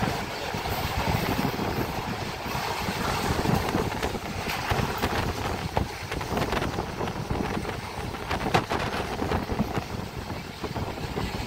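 Passenger train coach running at speed: a steady rumble of wheels on the rails with wind across the microphone, and many short clicks and knocks, thickest in the middle.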